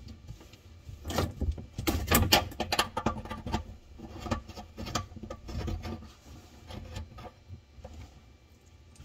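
Handling noise from a braided kitchen-faucet supply hose being fitted to the shutoff valve under the sink: a dense run of clicks, knocks and scrapes about a second in, then lighter scattered knocks and rustling.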